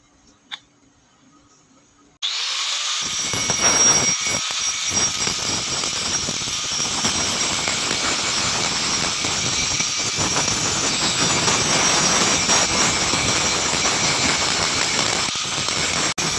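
About two seconds in, an angle grinder starts suddenly and grinds steadily with an abrasive disc on the rusty steel blade of a meat cleaver, stripping off the rust.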